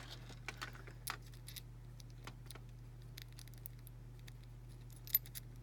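Scattered light metallic clicks and taps of small padlock parts and screws being handled during reassembly, with one sharper click about five seconds in.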